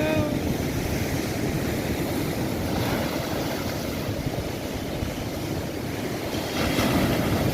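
Strong sea wind blowing across the microphone over breaking surf: a steady, low rush of noise without pause, swelling a little near the end.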